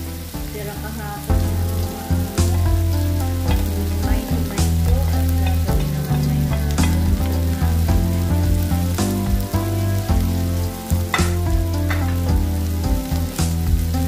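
Instrumental background music with a regular beat, over the sizzle of kebab meat and shredded chicken frying in a pan as a wooden spatula stirs them.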